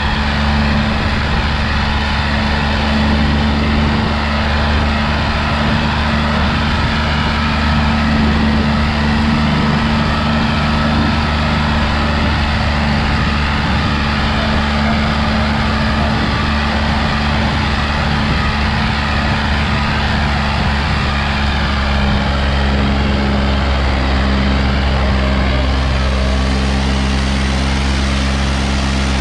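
John Deere 5045 tractor's three-cylinder diesel engine running steadily under load while pulling a 16-disc harrow. Its note shifts slightly about three-quarters of the way through.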